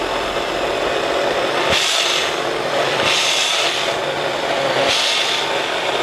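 Battery-powered 8-inch mini chainsaw running under load as its chain cuts through a green apple branch, the cut getting louder three times as the chain bites in.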